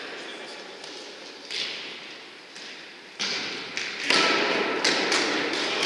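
Futsal ball being kicked and players' footsteps on a wooden sports-hall floor, echoing in the hall: a few separate knocks, then busier, louder play noise from about four seconds in.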